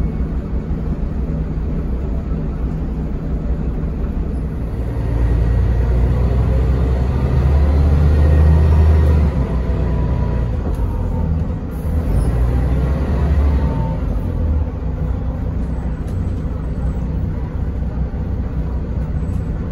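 Interior of a 2001 Mercedes-Benz O405NH city bus on the move: a steady low engine and road rumble heard from the rear seats. The rumble swells for several seconds about a quarter of the way in, dips briefly just past the middle, swells again, then settles back to a steady drone.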